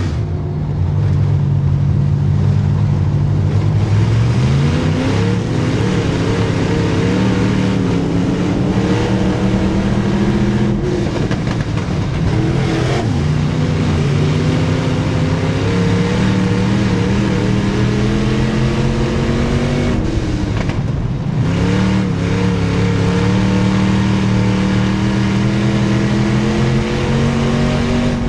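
Midwest Modified dirt-track race car's V8 engine at racing speed, heard from inside the car: the engine note climbs steadily down each straightaway, then drops sharply twice as the driver lifts for the turns, and climbs again.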